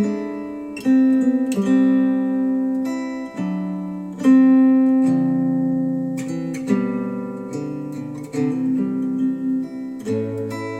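Acoustic guitar music played back through Wharfedale Denton 80th bookshelf speakers driven by a Sony STR-DG500 receiver: plucked chords struck every second or two, each ringing out and fading.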